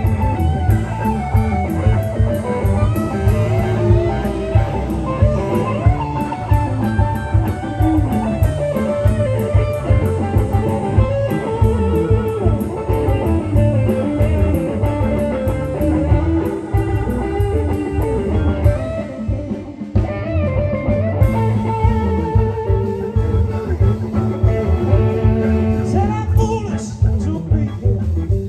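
Live blues-rock band playing, with electric guitar out front over drums and bass.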